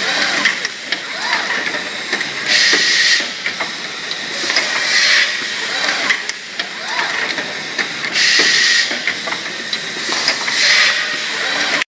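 Automatic cardboard-folding packaging machine running, its pneumatic cylinders exhausting air in four loud bursts of hiss about two to three seconds apart, over steady mechanical clicking and short whines of moving parts.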